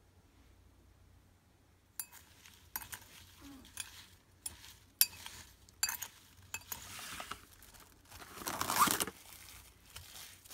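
A spoon clinking and scraping against a glass bowl as cut strawberries are stirred with sugar and lemon juice, then plastic cling wrap crinkling as it is stretched over the bowl, loudest near the end.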